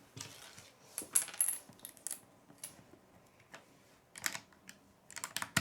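Small plastic Lego pieces clicking and clattering as they are handled and pressed together, in irregular short clusters of sharp clicks: around a second in, about four seconds in, and a quicker run near the end.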